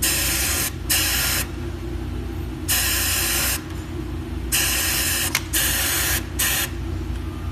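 Compressed air hissing in about six short bursts, each half a second to a second long, from the pneumatic attaching device of a cylinder-bed overlock sewing machine, over a steady low machine hum.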